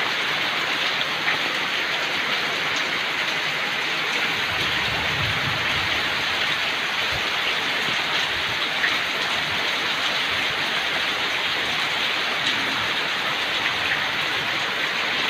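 Heavy rain pouring down steadily, a dense even hiss with a few separate drops ticking through it.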